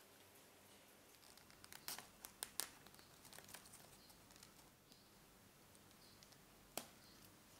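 Faint crinkling and rustling of twine being knotted into a bow by hand, with a quick run of light clicks about two seconds in. Near the end, a single sharp snip of scissors cutting the twine.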